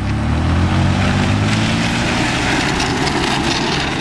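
Front-wheel-drive van's engine revving hard under load as it drags a seized, flat rear wheel across dirt. About a second and a half in, a harsh scraping hiss from the dragged tyre and dirt joins the engine.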